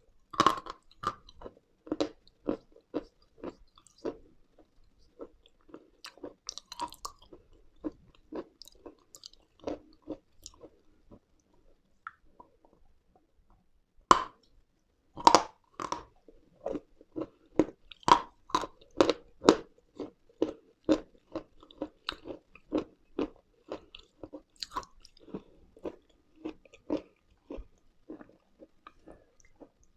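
Close-miked biting and chewing of dry, crunchy edible chalk and clay. There are loud crisp bites about half a second in and again around fourteen and fifteen seconds, and between them steady crunching chews at about two a second.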